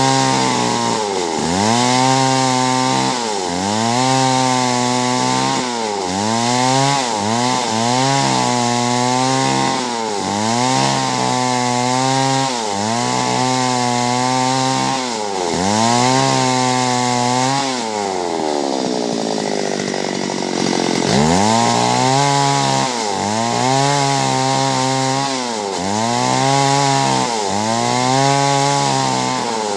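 Chainsaw cutting clove tree wood, its engine pitch dipping and recovering every second or two as the chain bites and clears. About two-thirds of the way through the engine winds down for a few seconds, then revs back up and carries on cutting.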